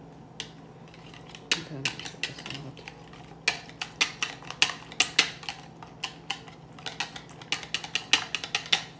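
Wire whisk beating eggs in a plastic measuring jug: quick, irregular runs of clicking and tapping as the wires strike the sides of the jug, starting about a second and a half in.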